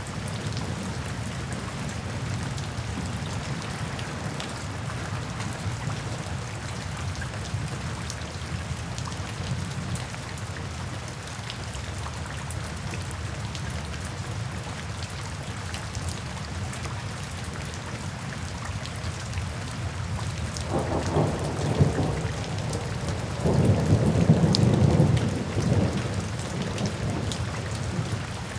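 Steady rain falling, with rolling thunder rumbling twice near the end.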